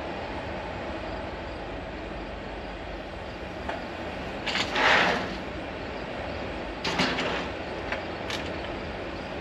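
Patio sliding glass door sliding open about halfway through, a loud brief rolling swish, followed by a few clicks and knocks. A steady background rumble runs underneath.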